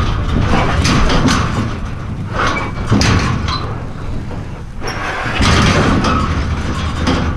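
Steel livestock trailer rattling and banging with repeated clanks and thuds as a heavy bull inside shoves against its wall, over a constant low rumble.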